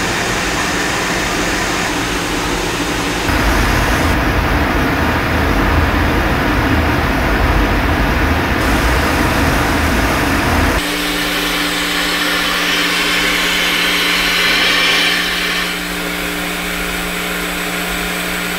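Gas-fired Scotch marine steam boiler's burner and fan running steadily during a cold start. A deeper rumble comes in about 3 seconds in, and after about 11 seconds it gives way to a steadier hum with a hiss over it.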